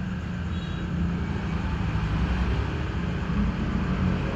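Steady low rumble of a running engine, its hum wavering slightly in pitch under a constant hiss.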